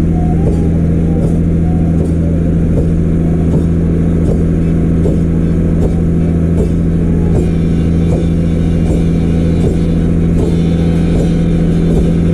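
Motorboat engine running steadily with a constant low hum, with water noise from the boat's wake. Faint regular ticks come about every three-quarters of a second.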